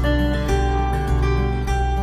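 Background music: plucked guitar-like notes over a steady bass pulse that changes about every half second.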